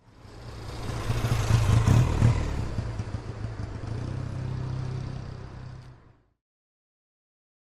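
Motor scooter engine running. It builds up and is loudest about two seconds in, with some clatter, then runs steadily before fading out about six seconds in.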